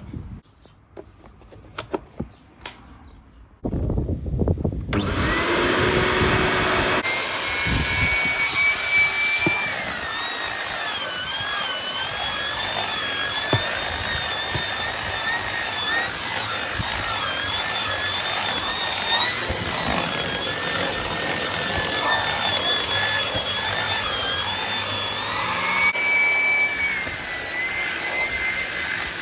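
Numatic NVH vacuum cleaner switched on about four seconds in after a few handling clicks, its motor spinning up with a rising whine and then running steadily. The motor's whine wavers up and down in pitch while the nozzle is worked over the car's seats.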